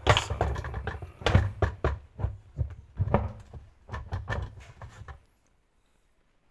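Irregular knocks and clunks of parts being handled and fitted into a washing machine during repair, stopping suddenly about five seconds in.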